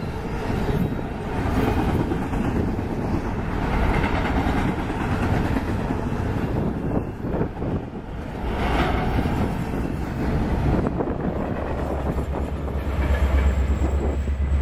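Double-stack container well cars of a freight train rolling past with steady wheel-on-rail noise. In the last few seconds the rear distributed-power locomotive, an EMD SD70ACe with a two-stroke V16 diesel, comes by and its low engine drone grows loud.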